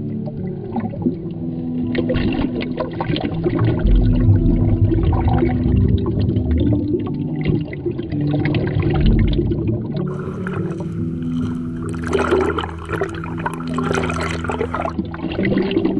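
Underwater sloshing and bubbling of shallow sea water at the microphone, under background music of sustained low chords. The water noise grows brighter and busier from about ten seconds in, for some five seconds.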